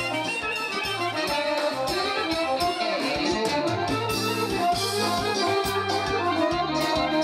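Dance music with a steady bass beat and a melody of held notes over it.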